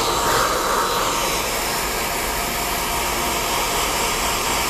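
Hand-held hair dryer fitted with a diffuser, blowing steadily, with a faint steady whine under the rush of air.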